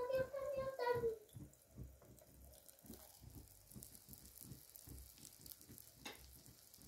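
Eggs and chopped herbs frying in a pan, a quiet irregular crackle of small pops. Near the start there is a short squeak that drops in pitch about a second in, and there is a single click near the end.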